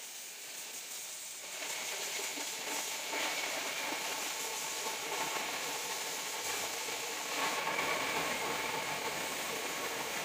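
High-pressure washer spraying water onto a car, a steady hiss that comes in strongly about a second and a half in.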